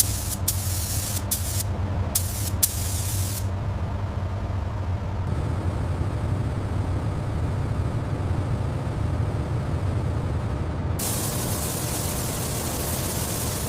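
Several short bursts of spraying hiss, then a long steady hiss starting near the end, over a steady low machine hum.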